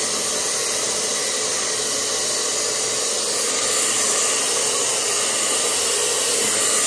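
Handheld pet hair dryer running steadily, a continuous rush of blown air with a faint motor hum.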